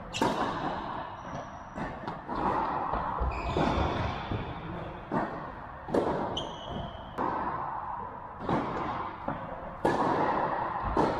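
Tennis balls struck by rackets in a singles rally, a sharp pop every second or so, with short high squeaks of shoes on the court. The hits echo in a large indoor hall.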